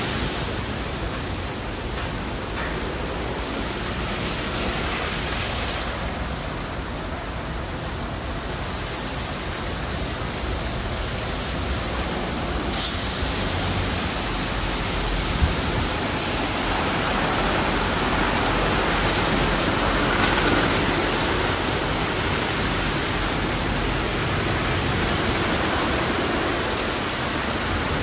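Automatic tunnel car wash running, heard from outside: a steady rushing noise of water sprays and dryer blowers, with a short sharp hiss about halfway through and a single click soon after.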